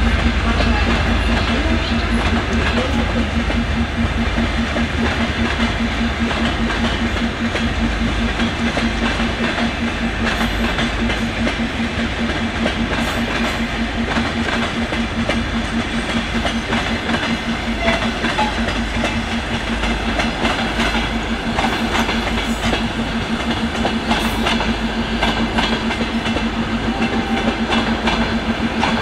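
Two Soviet M62 diesel locomotives in multiple, their two-stroke V12 diesels running under power with a steady pulsing drone as they haul a passenger train away. The deep engine rumble is strongest in the first few seconds and then eases, while the coach wheels clatter over rail joints.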